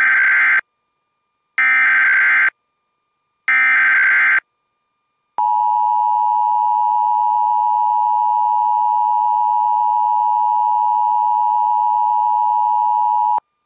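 Emergency Alert System header: three one-second bursts of SAME digital data screech, about a second apart, then a steady EAS attention tone held for about eight seconds that cuts off abruptly, signalling that an alert message follows.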